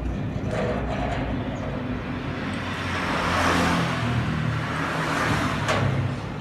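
A motor vehicle passing by, its noise swelling to a peak about three and a half seconds in and then easing off.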